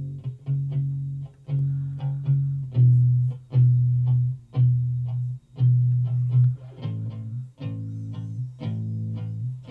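Recorded bass guitar track played back through the digital mixer, plucked notes about two a second with a sharp, bright string attack on each: a lot of high end on the bass.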